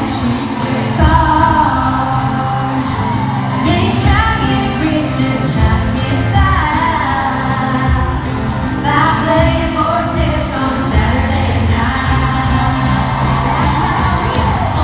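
Live country band performance with women's voices singing over drums, bass and guitars, recorded from the audience in a large hall.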